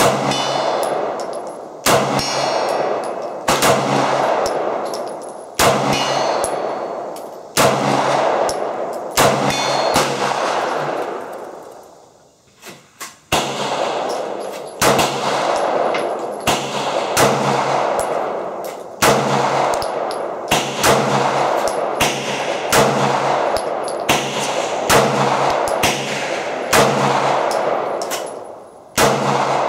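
Glock 19 9mm pistol firing shot after shot, about twenty in all, a second or two apart, each with a long echoing tail. There is a short pause about twelve seconds in. The pistol has a freshly fitted 3.5-pound trigger connector.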